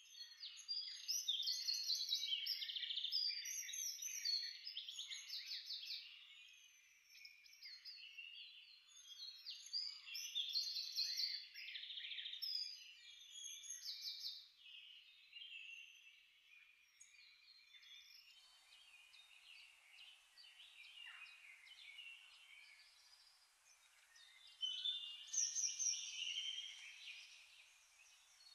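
A chorus of small birds chirping, many short calls overlapping, busiest in the first few seconds and again near the end. A faint steady hiss comes in about two-thirds of the way through.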